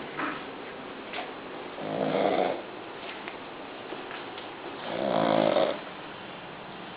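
Young pug snoring in its sleep: two snores, each under a second long, about three seconds apart.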